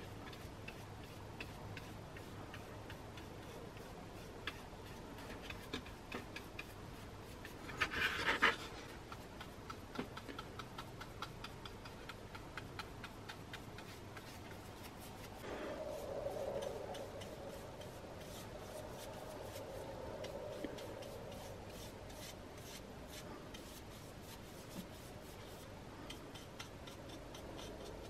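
Paintbrush brushing and dabbing wood finish onto a small wooden board: faint bristle rubbing with light ticks, and a short louder scrape about eight seconds in.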